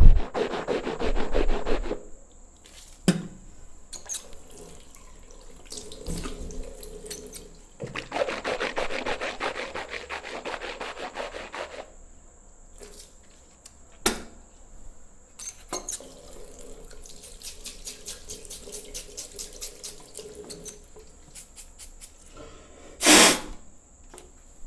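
Bristle brush scrubbing in rapid back-and-forth strokes, in bursts of a few seconds with short pauses between them. One brief, louder rush comes near the end.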